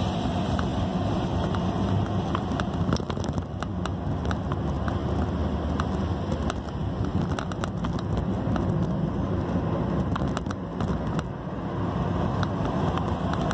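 Car cabin noise while driving in city traffic: a steady engine and road rumble, with scattered light clicks and rattles.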